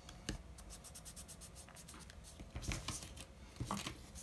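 Hands pressing and rubbing a paper oval flat onto a card on a cutting mat: faint paper rubbing, with a few light taps, one shortly after the start and a couple in the last second and a half.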